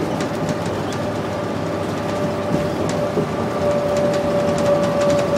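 Cabin sound of a 2001 New Flyer C40LF transit bus cruising at highway speed, with its Cummins C Gas Plus engine and Allison B400R transmission running. A steady rumble and road noise carry a steady whine that grows louder about halfway through, with a few light rattles.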